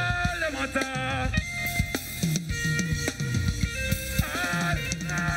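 Live dancehall band music with a steady drum kit beat and bass, with bending melodic lines over it.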